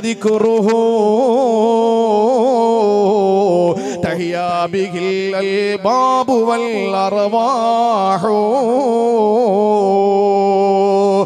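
A man chanting in long, ornamented held notes with a wavering pitch, into a microphone, with short breaths between phrases about four and six seconds in.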